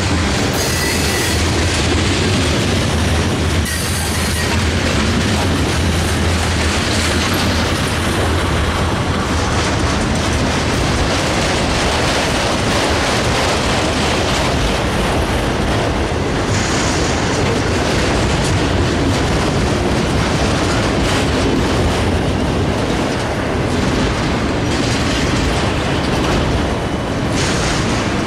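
A long freight train's cars, autoracks and covered hoppers, rolling past: a steady, loud rumble and clatter of steel wheels on rail.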